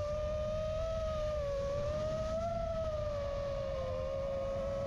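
FPV quadcopter's brushless motors whining steadily in flight, the pitch wavering slightly up and down with the throttle, over a low rumble of wind on the onboard microphone.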